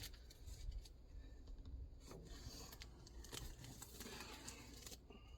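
Faint scraping, rubbing and scattered clicks of a cardboard box being cut and opened.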